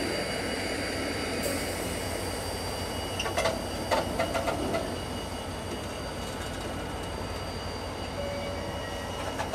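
Diesel-hauled freight train of empty timber wagons rolling along the track: a steady rumble, with a short run of sharp clicks about three to five seconds in.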